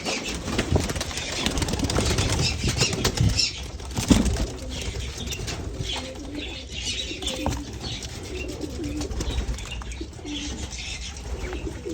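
Pigeons flapping their wings and cooing, with parakeets chirping in the background.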